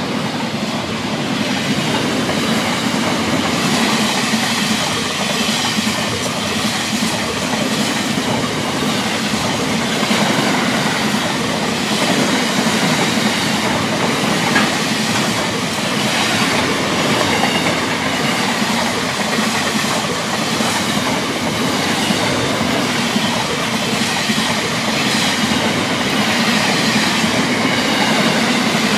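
Container freight train's wagons rolling past close by: a steady, continuous noise of steel wheels running on the rails.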